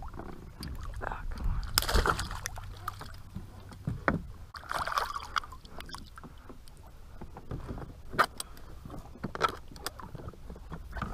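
Water splashing and sloshing around a plastic sit-on-top fishing kayak, with scattered knocks and clicks of gear being handled on the hull. Noisy bursts come about two and five seconds in, and a cluster of sharp clicks comes near the end.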